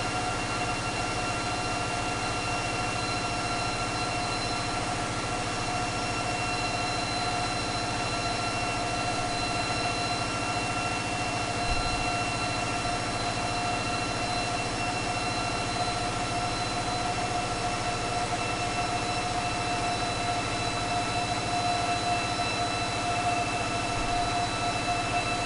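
Caterpillar 3516B V16 diesel engine running steadily on an engine dynamometer, with a steady high whine over the engine noise.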